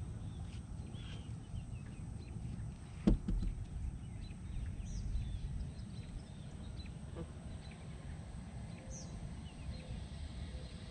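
Outdoor lake ambience: a steady low rumble with scattered short bird chirps, and a single sharp knock about three seconds in.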